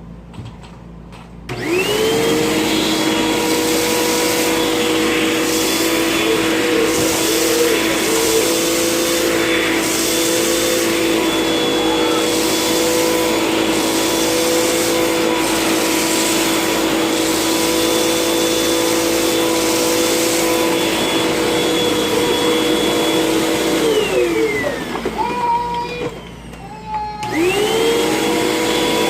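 Vacuum cleaner switched on: its motor whine rises to full speed and runs steadily. Near the end it is switched off and winds down with a falling pitch, then is switched on again and spins back up.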